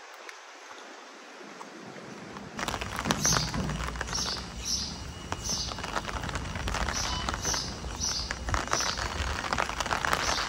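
Wind and rain, a steady rush that grows louder and gains a low rumble about two and a half seconds in. Over it a short high chirp repeats about twice a second.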